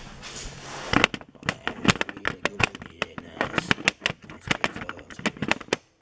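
Handling noise: a quick, irregular run of sharp clicks and crackles that starts about a second in and stops just before the end.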